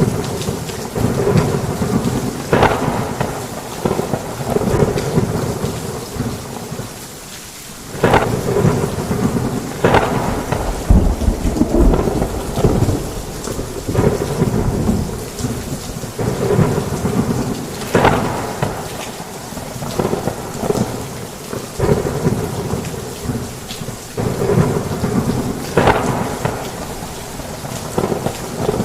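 Heavy rain pouring steadily, with thunder rolling through it in repeated swells every few seconds and a deep low rumble about eleven seconds in.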